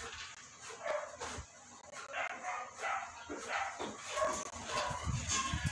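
Small dogs giving a string of short, repeated yaps and whimpers.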